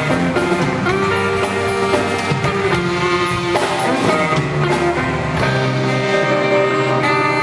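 Live band music with a tenor saxophone playing long held notes over a rock-style backing of guitar and drums.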